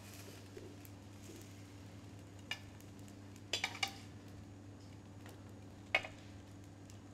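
Metal spatula clinking and scraping against a frying pan as pasta is slid out onto a plate: one light click, then a quick cluster of three, then one more, over a faint steady low hum.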